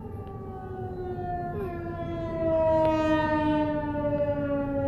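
Outdoor tornado warning siren winding down as it shuts off at the end of a test: one long tone, falling slowly and steadily in pitch, growing louder about halfway through.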